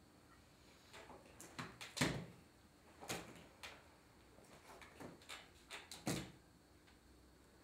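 A series of about ten soft thuds and splats as lumps of soft white food are thrown at and hit a seated man's shirt, loudest about two seconds in and again about six seconds in.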